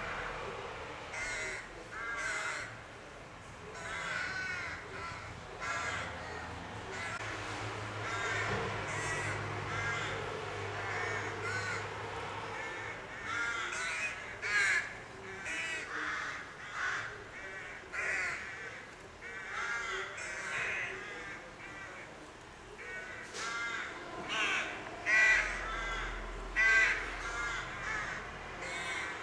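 A rook colony calling: many harsh caws overlapping, from several birds at once, with a few louder, closer caws in the last few seconds.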